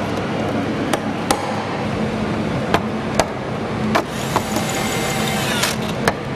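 Factory work noise: irregular sharp clanks and knocks from tools and parts, about eight in six seconds, over a steady machinery hum, with a faint whine in the second half.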